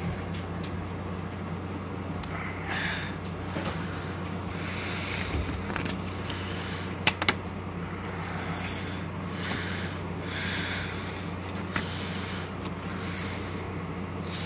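Paper booklet pages rustling as they are handled and turned, with a few light clicks, over a steady low hum.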